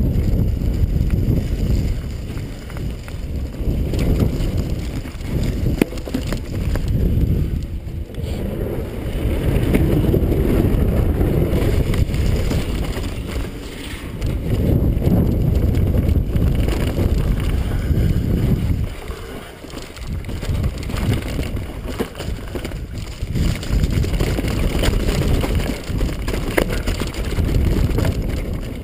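Wind rushing over an action camera's microphone on a downhill mountain bike at speed, mixed with tyre roll and the rattle and sharp knocks of the bike over rough dirt and rocky trail. It eases briefly about two-thirds of the way through.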